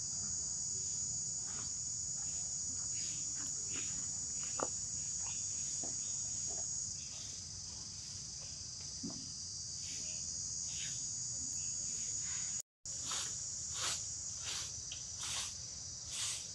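Steady high-pitched insect chorus, with scattered short faint chirps and clicks over it. The sound drops out for an instant about three-quarters of the way through.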